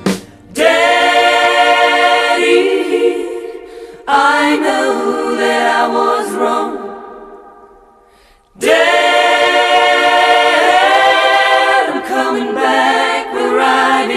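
Unaccompanied voices singing long held harmonised chords, in three phrases. The second phrase fades away before the third comes in.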